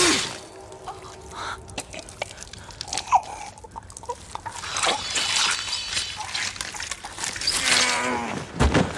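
Sounds of a close fight: scattered sharp knocks, crunches and scuffling, with a louder strike about three seconds in.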